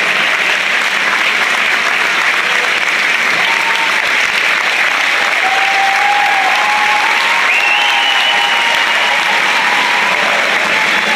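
Large audience applauding steadily, a continuous wash of clapping that holds an even level throughout.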